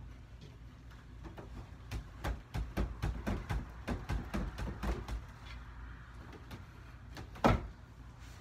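Wooden dresser drawers being worked: a rapid run of small knocks and clatters for about four seconds, then a single loud bang near the end as a drawer is pushed shut.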